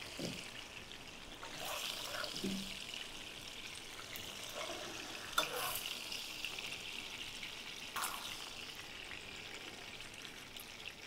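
Hot oil sizzling faintly and steadily in a frying pan after salmon fillets have been pan-fried, with a couple of light clinks of utensils about halfway through and again later.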